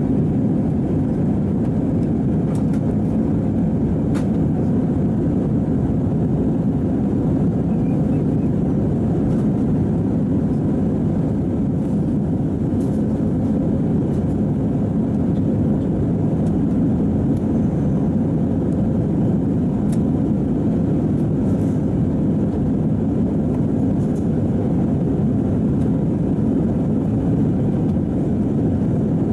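Jet airliner cabin noise during the climb after takeoff: a steady, even low rumble of the engines and rushing air, with no change in pitch or loudness.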